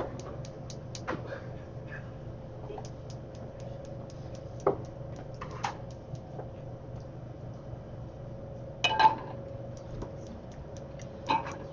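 Kitchen handling sounds over a steady low hum: light clicks and clatter of metal pans and utensils, with a louder ringing clang about nine seconds in as a stainless sauté pan is set onto the gas range's grate.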